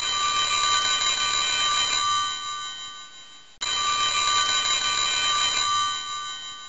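Telephone ringing: two long rings, each steady for about two seconds and then fading, the second starting about three and a half seconds in.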